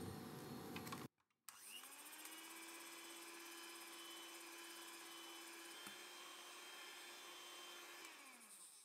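Electric hand mixer beating egg whites into meringue in a glass bowl. A first burst of mixing cuts off about a second in. The motor then spins up with a rising whine, runs steadily at speed, and winds down near the end.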